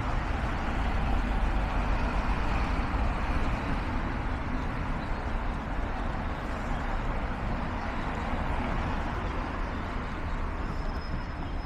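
Busy city road traffic: cars and a bus passing, giving a steady low rumble of engines and tyres.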